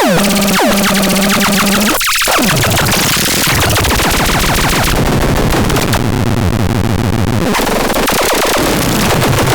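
Industron electronic sound device: a string of falling pitch sweeps over a steady tone, then after about two seconds a short gap and a dense, harsh noise with a rapid machine-gun-like stutter over a low hum.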